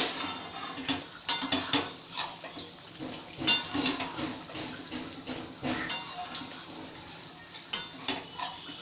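Metal spoon stirring fried rice in a steel kadai: irregular scrapes and clinks of metal on the pan, with a few sharper knocks that ring briefly.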